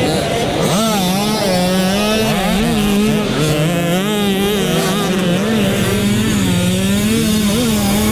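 Dirt bike engine revving up and down as it is ridden around a motocross track, its pitch rising and falling with the throttle.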